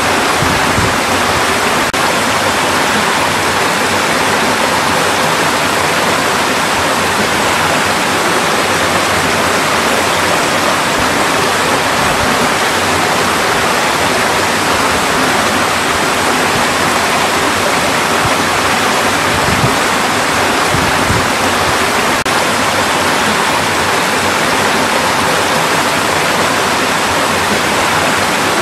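Mountain valley stream rushing over rocks: a steady, loud, unbroken rush of water.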